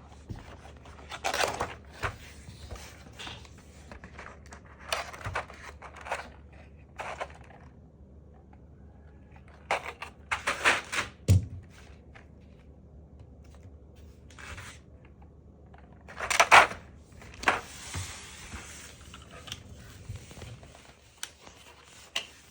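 Hands handling a mechanical keyboard and its plastic parts: scattered clicks, knocks and scrapes in short bursts, with a longer rustling scrape a little past the middle.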